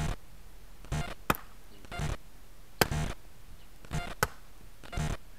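Rhythmic chopping blows from an axe, about one a second: sharp knocks alternating with duller thuds.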